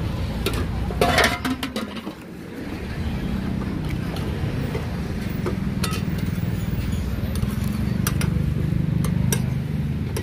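Metal clinking of a ladle, aluminium pans and lids being handled: a quick cluster of clinks about a second in, then single clinks spread through the rest, over a steady low rumble.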